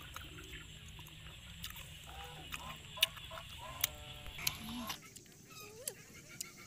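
Farm fowl calling a few times in short pitched calls, one gliding up and down near the end. Several sharp clicks of snail shells knocking together close by, the loudest about three seconds in.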